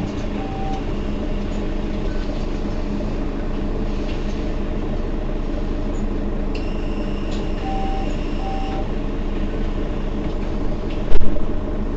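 Mercedes-Benz Citaro facelift city bus running with a steady low engine hum. A short electronic beep sounds just after the start and a pair of beeps comes about eight seconds in, over a thin high whine lasting about two seconds. A loud thump near the end is the loudest sound.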